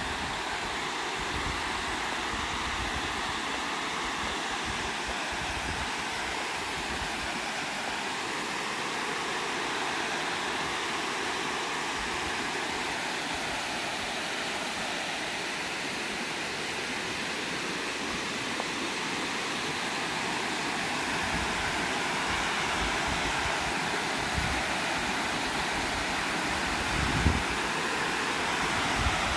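Water overflowing a concrete dam spillway, a steady rushing that grows a little louder in the second half, with a few brief low bumps near the end.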